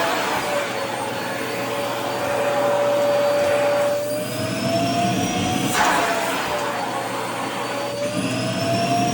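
Vacuum cleaner running while its nozzle sucks at skirt fabric. The motor whine slowly rises and falls in pitch, with a short rush of air about six seconds in.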